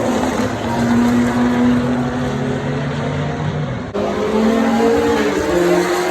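Supercar engine running hard at a fairly steady high pitch. About four seconds in, the sound cuts abruptly to another engine whose pitch climbs as it accelerates.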